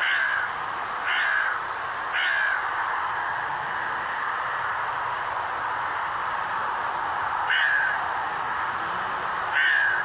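A crow cawing five times, harsh and loud: three caws about a second apart, then two more near the end, over a steady hiss.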